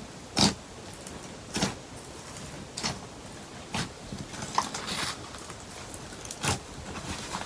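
Slime being worked by hand, giving a short sharp pop or snap roughly once a second over a faint steady hiss.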